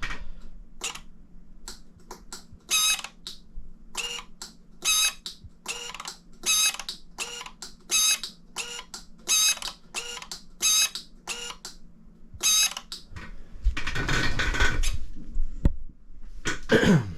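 Shimano 105 Di2 electronic derailleur motor buzzing in short whirs, about twenty quick shifts at roughly two a second, as the shifter buttons are clicked through the gears. Handling noise follows near the end.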